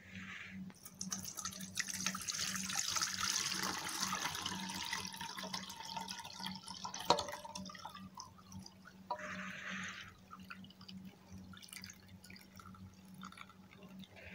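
Milk poured from an aluminium pot through a small metal strainer into a stainless steel bowl: a steady splashing pour that thins to a trickle and drips over the last several seconds, with one sharp knock about halfway through.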